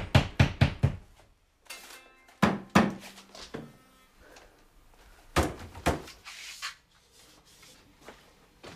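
A quick run of knocks, about five a second, in the first second, then several separate thuds and knocks in a small room.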